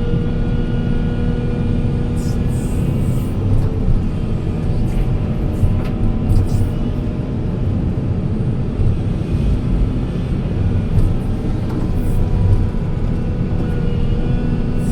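Heavy machine's diesel engine running steadily under load, with short sharp noises now and then.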